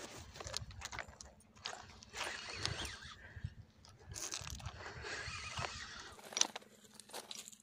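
Irregular crunching and rustling close to the microphone, from an angler's footsteps on loose gravel and his clothing brushing the camera while he plays a fish on a spinning rod.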